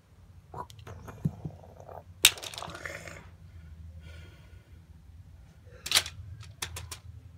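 Sharp plastic clicks and knocks of a LEGO Technic model's parts being handled as its bonnet is worked shut, the loudest about two seconds in and another about six seconds in, with lighter ticks between over a faint low hum.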